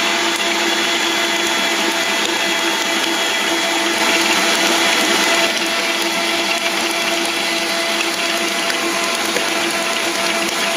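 Stand mixer's motor running at high speed, a steady whine, as its hook kneads 100%-hydration pizza dough that is nearly developed in a steel bowl.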